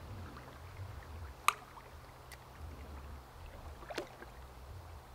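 Faint low sloshing of stream water around a wader's legs in a shallow creek. Three sharp clicks cut through it, one about a second and a half in, a fainter one soon after, and another near four seconds.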